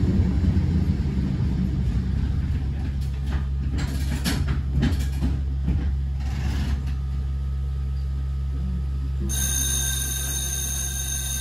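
Tram running with a steady low hum and scattered knocks and clicks. Near the end a high electric signal bell starts ringing steadily and keeps on.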